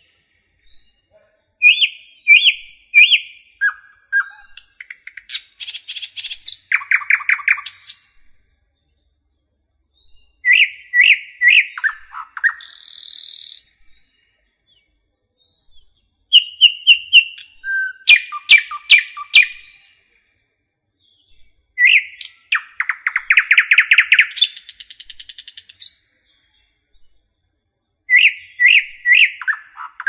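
Red-whiskered bulbul singing: short phrases of bright chirps and quick trills, repeated every five or six seconds with silent gaps between.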